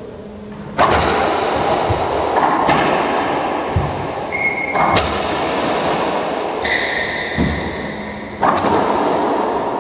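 Racquetball rally in an enclosed court: the rubber ball smacking off racquets and walls in several sharp, echoing hits, about a second or two apart, with high sneaker squeaks on the hardwood floor between them.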